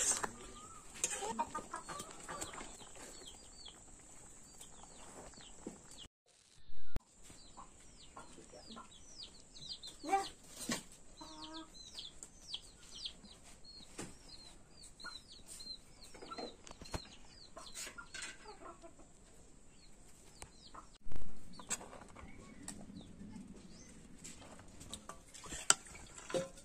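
Chickens clucking nearby, with a quick run of high, falling peeps through the middle, over the scrape and tap of a metal spatula stirring in a metal kadai. Two short loud bangs stand out, about 7 and 21 seconds in.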